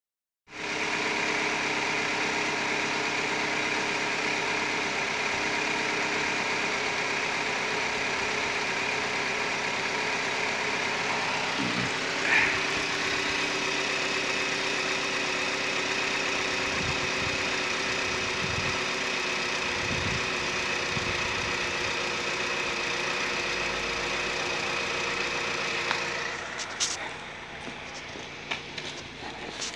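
2011 Holden Captiva 5's 2.4-litre Ecotec four-cylinder petrol engine idling steadily, heard close up in the engine bay, with a brief chirp about twelve seconds in. Near the end the engine sound drops quieter and a few clicks and knocks come through.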